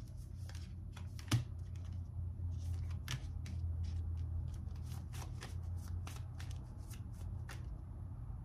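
Tarot cards being shuffled by hand: a run of irregular flicks and slaps of card stock, with one sharper snap about one and a half seconds in, over a low steady hum.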